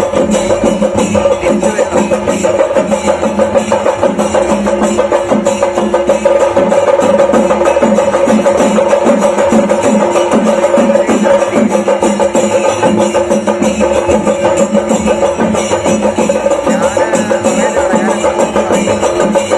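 Chenda melam: Kerala chenda drums beaten in a fast, dense, unbroken roll over a steady held tone.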